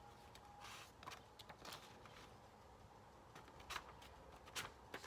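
Near silence, broken by a few faint, brief rustles and taps of hands handling a paper sheet on the table.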